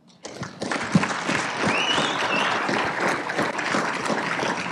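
Audience applause: many hands clapping, starting sharply a quarter of a second in and holding steady. One brief high-pitched call rises above it about two seconds in.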